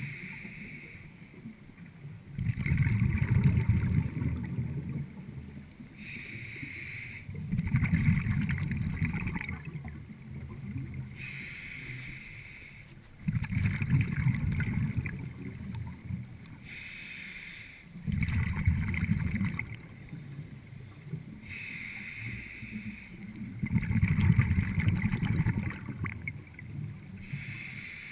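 Scuba diver breathing through a regulator, heard through an underwater camera housing: a short hiss of inhalation, then a louder low rumble of exhaled bubbles, repeating about every five seconds, five breaths in all.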